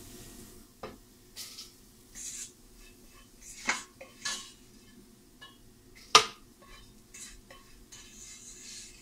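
A spatula scraping and knocking against a frying pan as fried onion and coconut are scraped out into a plastic blender jar: a string of short scrapes and taps, with one sharp knock about six seconds in, the loudest.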